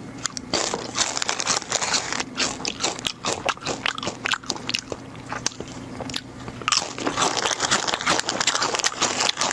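Loud open-mouthed chewing of crunchy nacho cheese chips: rapid, irregular crunches.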